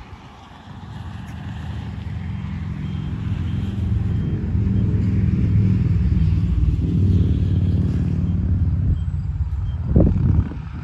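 A motor vehicle engine rumbling, growing louder over the first several seconds and easing off about nine seconds in, with a brief loud bump about a second later.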